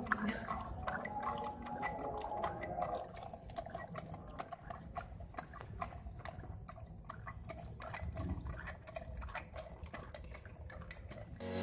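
Miniature metal hand water pump worked by its lever: water trickling and splashing from the spout, with many small clicks from the pumping.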